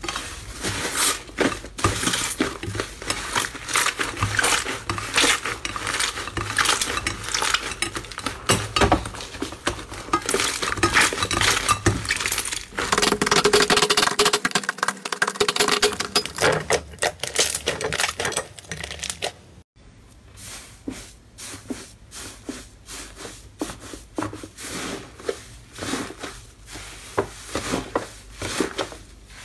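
Fluffy slime being stretched, kneaded and torn apart by hand in a bowl: dense crackling and popping as its air pockets break. Midway the sound changes to slime being rubbed and smeared over a glass bowl, and after a brief cut it returns to sparser crackling as blue fluffy slime is pulled apart.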